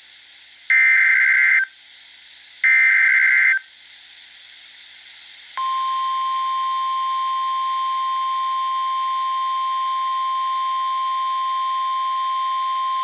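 Emergency Alert System SAME header: two buzzing digital data bursts about a second long, about a second and three seconds in. Then, about halfway through, the NOAA Weather Radio 1050 Hz warning alarm tone starts and holds steady. Together they announce an incoming warning, here a tornado warning.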